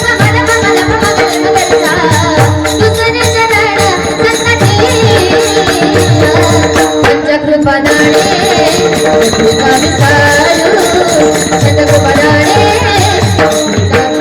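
Devotional kirtan music: a steady held drone, a repeating drum beat and regular hand-cymbal strokes, with voices singing over them.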